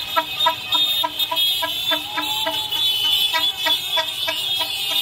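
A car horn sounding in a rapid, even string of short toots, about six a second, over motorcade traffic noise, with a longer horn note about two seconds in.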